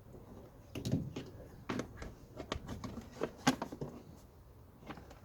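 Irregular sharp clicks and knocks of parts being handled and fitted back into a car's blower fan housing, a quick run of them through the middle, then one more near the end.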